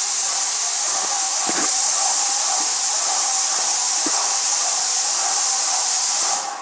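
Airless paint sprayer's gun spraying emulsion paint: a loud, steady hiss that cuts off just before the end.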